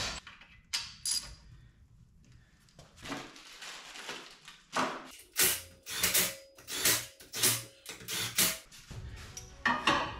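Metal parts knocking and clinking as a turbo and stainless exhaust tubing are handled and fitted by hand. The knocks come as a string of sharp, irregular strikes, some with a short metallic ring, mostly in the middle and later part.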